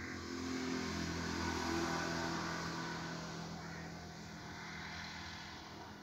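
A passing motor vehicle, its engine and road noise swelling to a peak about two seconds in and then fading, over a steady low hum.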